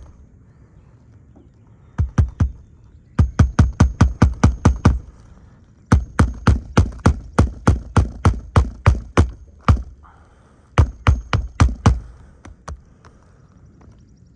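Hammer blows on asphalt roof shingles during a shingle repair, in four runs of quick strikes, several a second, with short pauses between the runs.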